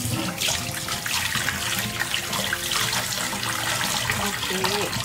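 Tap water running steadily into a bowl in a stainless steel sink, splashing as a hand rubs and squeezes sliced pork liver in it, rinsing off the flour.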